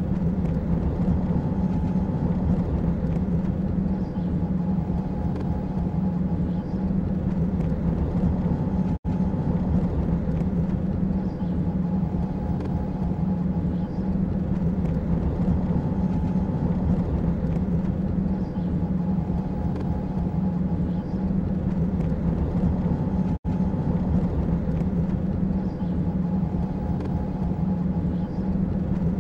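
Steady, low engine drone of a vehicle-ride sound effect, with a few faint steady tones above it. It cuts out for an instant twice, about 9 seconds in and again after about 23 seconds, where the loop restarts.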